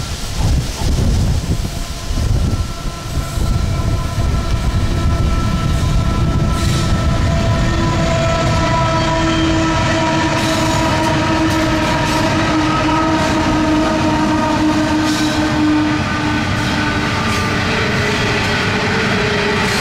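A Pacific National coal train passing close by: its diesel locomotives run with a deep rumble and several steady tones that sag slightly in pitch as they go past, then the coal wagons roll by. Wind buffets the microphone in the first few seconds.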